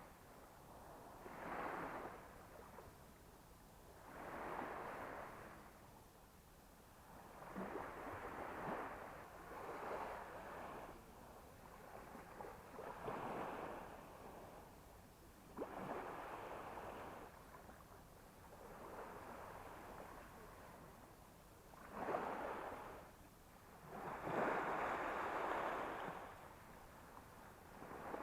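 Small sea waves washing onto the beach, one surge of water noise every two to three seconds.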